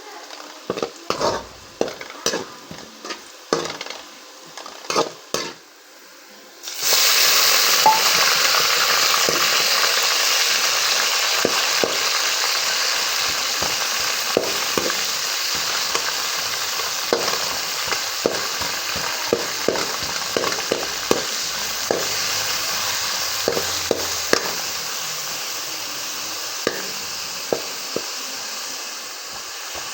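Keema (minced meat) frying in a pan. The first few seconds hold separate clicks and knocks. About seven seconds in, a loud sizzle starts suddenly and then slowly eases off, while a spoon knocks and scrapes against the pan again and again.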